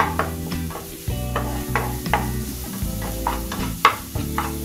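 Flat spatula scraping and tapping against a nonstick frying pan in irregular strokes, about two to three a second, as onion-tomato masala is stirred and fries in oil with a sizzle.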